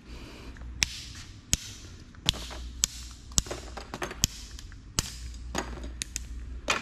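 A string of sharp clicks and light knocks, roughly one every half second to second, from computer scrap being handled, cut and tossed into bins while dismantling by hand, over a low steady hum.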